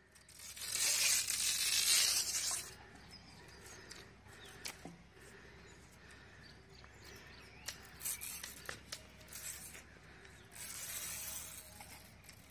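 A long green leaf torn lengthwise by hand, its blade stripped from the midrib: a tearing sound lasting about two seconds near the start and another shorter one near the end, with faint clicks and rustles between.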